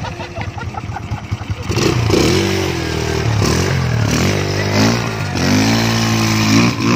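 Small motorcycle engine. It putters unevenly at a low idle, then about two seconds in it is revved up and its pitch rises and falls several times as the throttle is worked.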